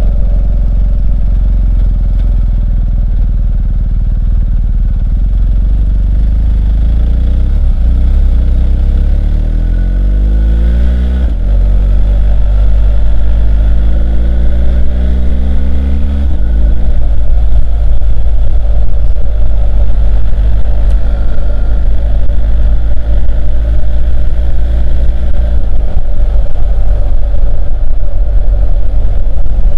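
BMW R1250 GS Adventure's boxer-twin engine accelerating, its note rising through two gears with a gear change in between, then settling to a steady cruise. Heavy low rumble of wind and road noise on the microphone throughout.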